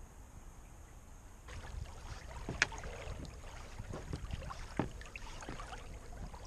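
Water splashing and slapping against the hull of a Neptun 22 sailboat under way, with irregular sharp slaps and a low wind rumble. It starts suddenly about a second and a half in; before that there is only a faint steady hiss.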